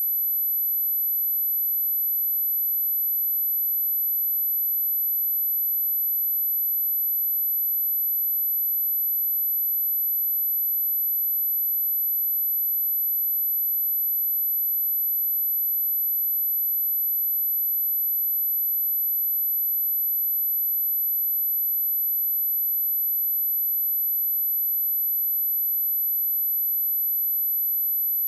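A pure sine-wave test tone at 11966 Hz, a steady very high-pitched whistle held unchanged at constant loudness.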